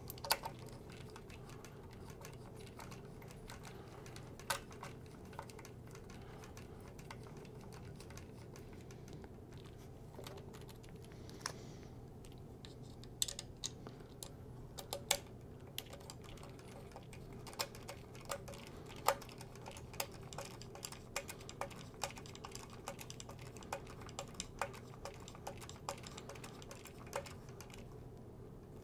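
A screwdriver driving small Phillips screws that fix a tonearm to a turntable's arm plate: light, scattered metal clicks and taps, sparse at first and more frequent in the second half, over a faint steady hum.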